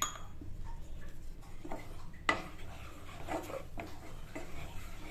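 Wooden spatula stirring besan into hot ghee in a nonstick pan: scraping over the pan with a few short knocks against it, the sharpest about two seconds in.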